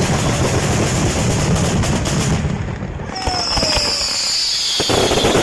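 Fireworks going off in a dense, rapid crackle of bangs that thins out about halfway through. Then a long high tone falls slowly in pitch, a sharp crack follows, and the crackling picks up again near the end.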